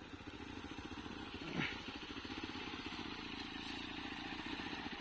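Hero XPulse single-cylinder motorcycle engine running steadily at low revs, an even fast pulsing. A brief falling sound comes about one and a half seconds in.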